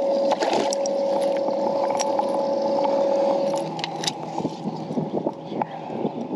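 A steady mechanical hum with a steady tone that drops away a little over halfway through. Scattered sharp clicks and knocks come from the fish and gear being handled on the boat.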